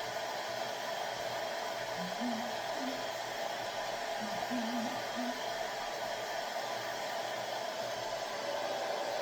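Hair dryer blowing steadily on a freshly glued weave track, drying the bonding glue.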